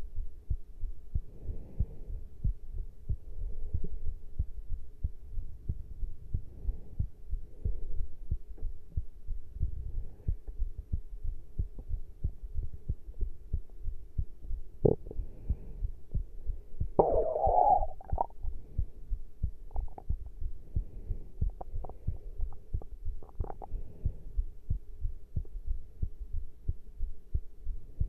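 A human heartbeat, picked up close to the chest after caffeine intake: a steady run of low thuds over a faint steady hum. A sharp knock comes about 15 seconds in, and a brief louder noise a couple of seconds later.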